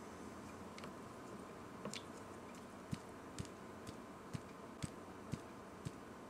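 Faint light taps about twice a second on a small spice bottle, knocking turmeric powder out of it into a beaker.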